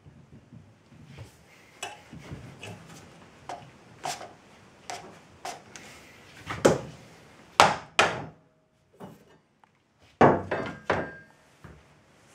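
A cold-rolled steel holdfast and a board knocking against a thick wooden workbench top: irregular sharp thunks as the holdfast is worked loose, pulled from its hole and laid down on the bench. The loudest knocks come as a pair just past the middle and a quick cluster near the end.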